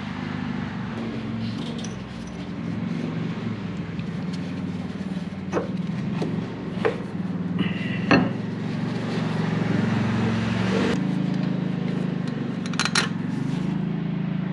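Truck engine running steadily, with several sharp clinks and knocks over it.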